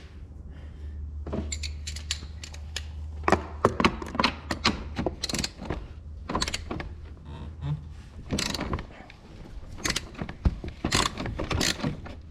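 Irregular clicks, knocks and clatter of hand tools and metal parts being handled during ATV repair work. A low steady hum sits under them and stops about eight seconds in.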